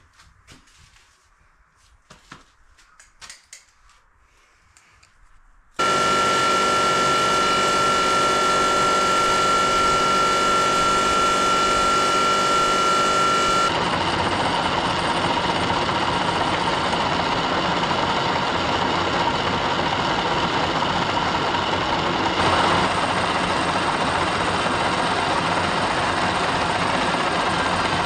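Faint handling clicks, then a metal lathe starts up abruptly about six seconds in, running with a steady motor and gear whine. About halfway through it changes to a rougher, noisier running sound.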